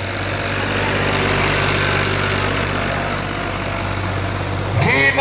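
Farm tractor's diesel engine running steadily as it drives past close by, towing a leveller over the dirt track. A man's voice starts near the end.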